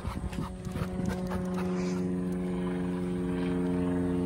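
A steady engine drone at one constant pitch, building slightly and then cutting off suddenly near the end.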